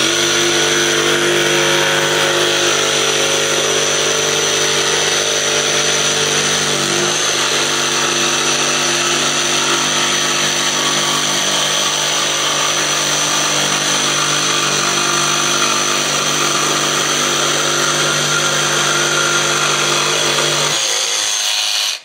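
DeWalt DCS335 cordless barrel-grip jigsaw running steadily as its blade cuts through a wooden board. The motor stops suddenly near the end.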